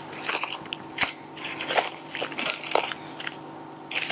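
Plastic cling film crinkling and crackling as it is peeled by hand off a ball of dough, in irregular bursts with a short lull near the end.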